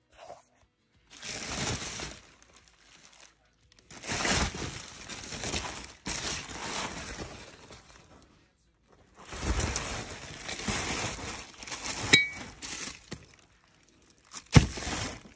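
Shards of broken ceramic cups and plates clinking and scraping together as bubble wrap and packing plastic are rustled and pulled about in a cardboard carton, in several bursts of a second or two. A sharp knock near the end is the loudest sound.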